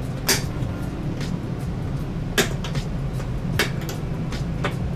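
Retaining clips of a TV backlight's diffuser-holding bracket snapping free as the bracket is pried off by hand: a series of sharp clicks about a second apart, over a steady low hum.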